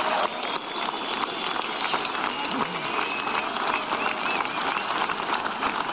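Large crowd clapping and cheering.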